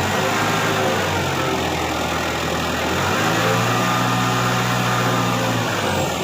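Engine of the vehicle lifting a heavy steel plate cutting machine, running loud under load. It steps up to a higher, steady speed about three seconds in, then drops back near the end.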